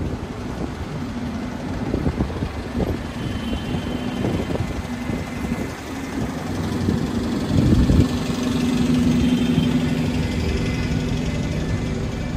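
An engine running steadily with a low hum over a rumble, growing louder about seven seconds in.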